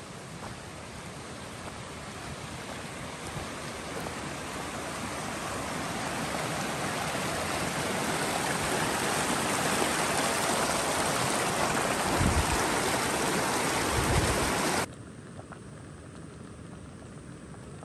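Rushing water of a stream, a steady noise that grows louder over about fifteen seconds, with a couple of low thumps near the end, then stops abruptly, leaving a quieter background.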